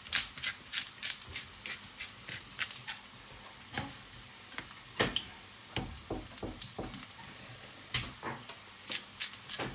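Faint sizzling of a potato cooking on a hot griddle, under irregular sharp clicks and taps from handling seasoned roe deer fillets on a cutting board; the taps come thickly in the first few seconds, then more sparsely.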